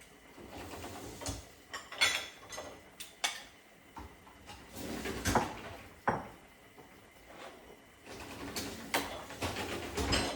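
Kitchen handling noises as a glass bowl is fetched: a series of clicks and knocks with a couple of longer sliding or scraping sounds, like a cupboard or drawer being opened and closed.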